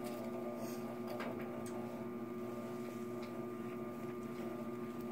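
Electric pottery wheel's motor humming steadily, with a few even tones, as the wheel turns slowly under a clay cylinder being shaped.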